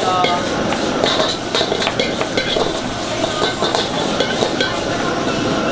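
A metal ladle clanking and scraping irregularly against a wok while stir-fried food sizzles over a high gas flame.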